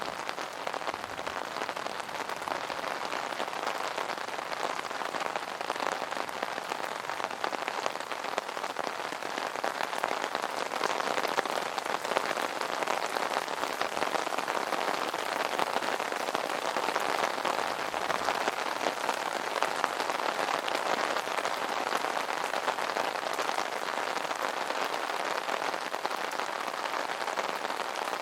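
Steady rain pattering on an umbrella canopy, a dense, even spread of fine drop ticks that swells slightly in the middle.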